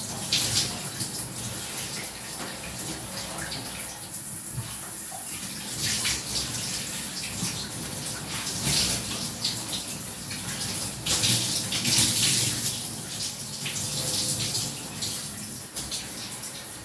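Shower running: water spraying from a showerhead and splashing, with uneven surges in the spatter.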